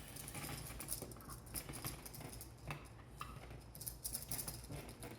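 Scattered light clicks and rustling as a freshly wired outlet and its stiff wires are pushed and worked into an old-work electrical box.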